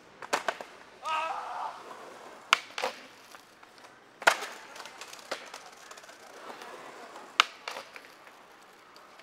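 Skateboard tail pops and the board slapping down on concrete, sharp cracks coming in pairs several times, with wheels rolling on the pavement between them. A short voice-like sound comes about a second in.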